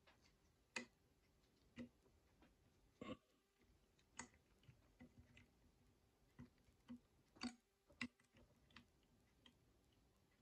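Faint, irregular small metallic clicks and taps, about a dozen, as the brass chime-hammer assembly of a Hermle triple-chime clock movement is worked into place on the movement plate, its hammers and rods catching.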